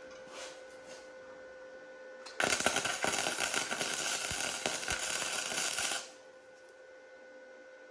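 Flux-core wire-feed welder arc crackling steadily for about three and a half seconds while welding a steel truck frame rail, starting about two seconds in and stopping abruptly. A faint steady hum before and after.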